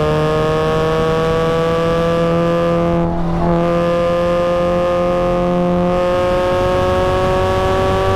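Supercharged Mazda Miata's four-cylinder engine pulling hard under acceleration, its pitch climbing steadily. About three seconds in, the note breaks briefly and drops a little for an upshift, then climbs again.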